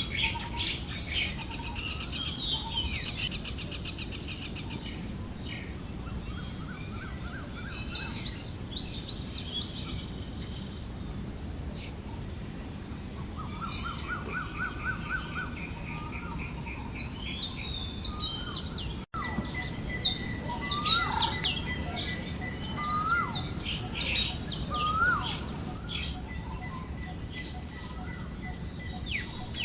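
A forest bird chorus: varied chirps and quick trills, with three rising call notes in the second half, over a steady high insect drone and soft breeze noise. The sound cuts out for an instant about two-thirds of the way through.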